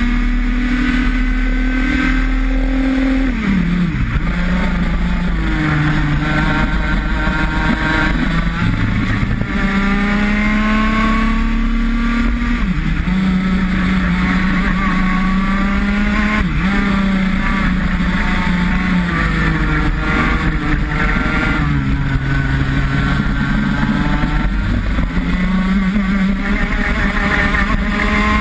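IAME X30 125cc two-stroke kart engine at full race pace, heard onboard. Its note climbs slowly along the straights and drops sharply under braking for corners about four times, then picks up again as the kart accelerates out.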